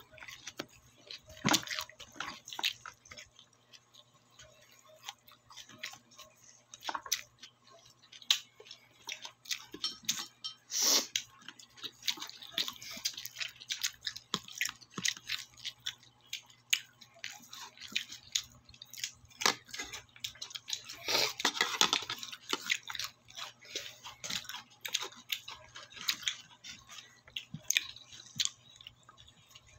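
A person chewing and crunching food close to the microphone, with wet mouth clicks and smacks: eating lechon with cucumber and lettuce. The chewing is busiest a little past the middle.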